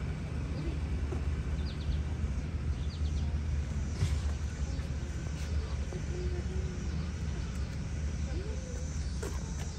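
Outdoor ambience: a steady low rumble with a few faint, short, high chirps and faint distant voices.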